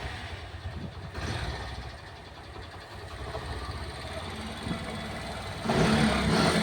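Mahindra Centuro motorcycle's single-cylinder four-stroke engine starting and running in gear, turning the rear wheel and chain, and getting louder as it is revved about five and a half seconds in. The chain runs without its earlier click, now that its bent link has been straightened.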